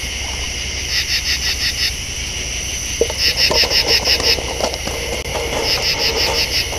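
Night insects calling: a rapid pulsed trill about a second long, repeating every two seconds or so, over a steady high-pitched insect chorus.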